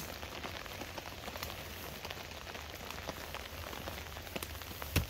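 Steady rain, with single drops tapping on the tarp overhead; a brief knock near the end.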